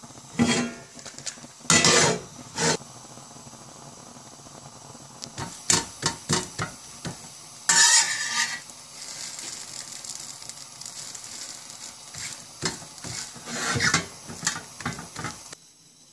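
Metal fork and spatula scraping and clattering against a hot metal pan while a thin pancake is lifted and folded, in a series of short sharp strokes. From about halfway a steady frying sizzle runs under them, cutting off suddenly near the end.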